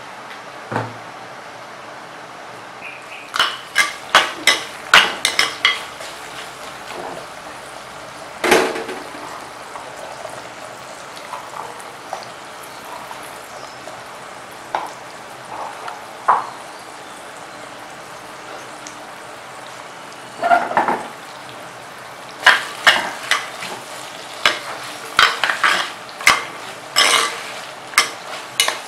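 Frying in a clay pot: hot oil sizzling steadily while shallots, garlic and curry leaves are dropped in by hand, and a ladle stirs them, clattering and scraping against the clay. The knocks come in bunches, a burst a few seconds in, one sharp clunk, then a dense run of stirring clatter through the last several seconds.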